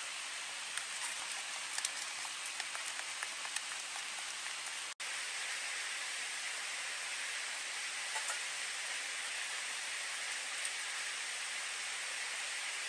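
Steady rushing of a nearby river. Over the first few seconds, small clicks and rustles of a plastic bag as flour is poured into a tub of egg and greens; the sound cuts out for an instant about five seconds in.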